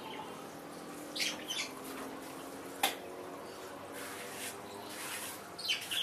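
Mason's trowel working wet cement mortar on a pond wall: a few short scrapes and one sharp tap about three seconds in, over a steady low hum.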